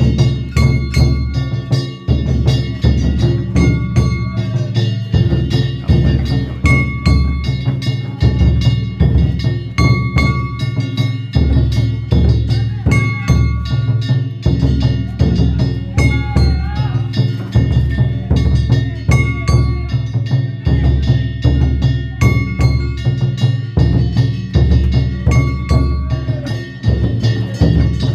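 Danjiri hayashi: a big taiko drum and hand-struck metal gongs (kane) played together in a fast, unbroken rhythm, the gongs ringing with a clear bell-like tone over the heavy drum beats.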